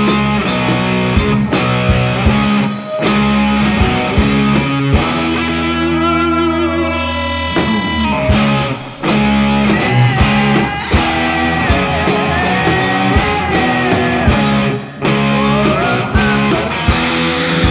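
Rock music: distorted electric guitars playing over a drum kit, with brief breaks in the beat.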